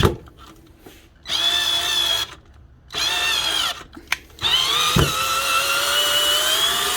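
Ryobi HP108L 8-volt cordless drill motor whining in short trigger-pulled spurts, then running longer with its pitch climbing steadily as it spins up. A couple of knocks come in between. The battery is down to its last bar.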